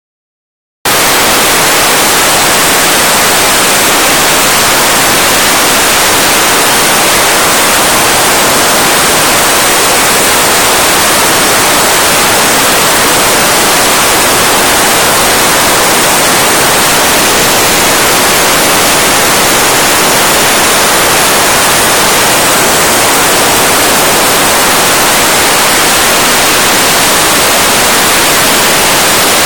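Soda blaster spraying baking soda under compressed air from its nozzle: a loud, steady, rushing hiss that cuts in abruptly about a second in and holds without a break.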